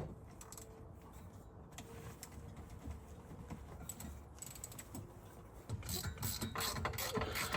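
Hand ratchet wrench clicking in short runs as bolts are worked loose under the car, faint at first and growing louder and denser about six seconds in.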